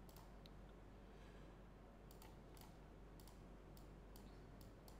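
Near silence with a scattering of faint, sharp computer-mouse clicks over a low room hum.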